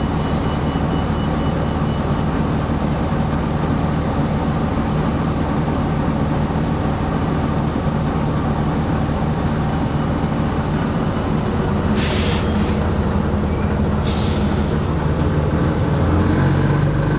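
Inside a 2020 New Flyer XD60 articulated bus, the engine and drivetrain running steadily while under way. Two short hisses of compressed air come about twelve and fourteen seconds in, typical of the bus's air brakes. The low engine note rises near the end.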